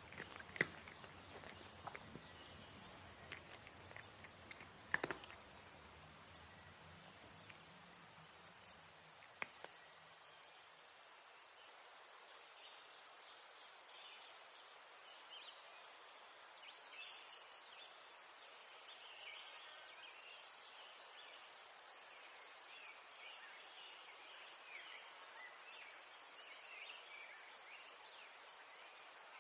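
Insects chirring in the grass: one high, steady, rapidly pulsing trill with no pauses. Two or three sharp clicks come in the first five seconds.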